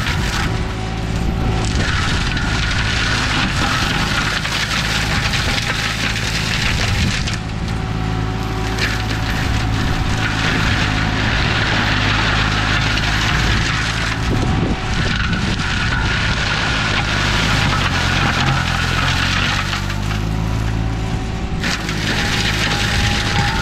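Green Climber LV600 remote-controlled slope mower's Kohler engine running steadily under load while its mulcher head shreds a pile of dry olive branches; a noisy shredding hiss sits over the engine note and drops away briefly a few times.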